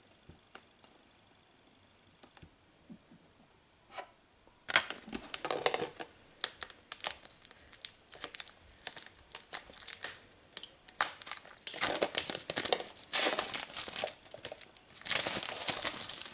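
Plastic shrink-wrap being peeled and torn off a steelbook case, crinkling in rapid, irregular bursts. The sound starts about five seconds in; before that there are only a few faint clicks.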